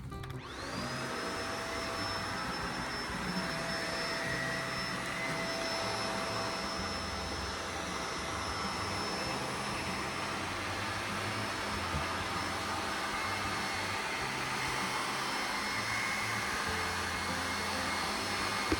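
Shark UV731 upright vacuum switched on: its motor spins up with a rising whine about half a second in, then runs steadily. It is running with the pickup roller turning again after a thick mat of hair jamming it was cleared.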